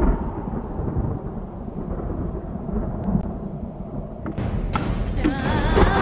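A steady, deep rumbling noise, thunder-like, with no clear strokes. About five seconds in, music with a held melody comes in over it.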